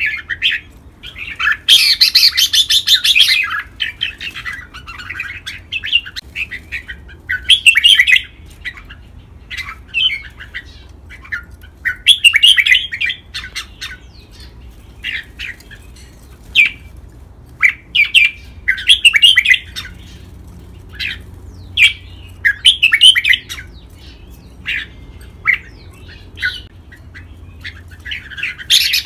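Red-whiskered bulbul singing: short phrases repeated every second or two, with a longer run of song near the start and another at the end.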